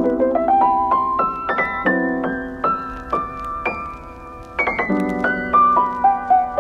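Background piano music: a melody of notes climbing upward in steps over held lower chords.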